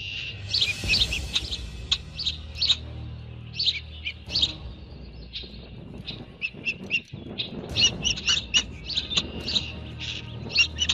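Small birds chirping: many short, high notes in quick runs, busiest in the second half, over a low steady hum.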